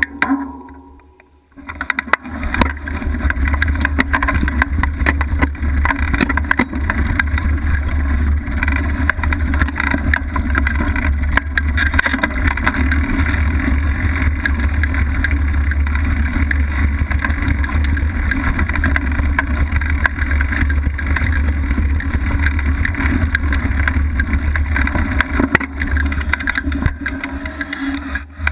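Wind buffeting a bike-mounted camera's microphone as a low, steady rumble, mixed with the rattle and crunch of a mountain bike rolling fast over a leaf-covered dirt trail. It is quieter for the first second or so, then holds steady.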